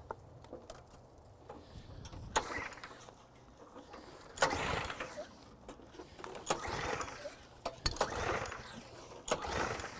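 Gasoline pressure washer's small engine being pull-started: a few clicks, then from about four seconds in four short yanks of the recoil starter, each a brief cranking rasp, and the engine does not catch.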